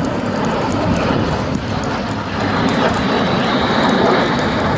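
Jet engines of a formation of Aero L-39 Albatros jet trainers flying past: a steady rushing roar, with a faint high whine coming in about halfway through.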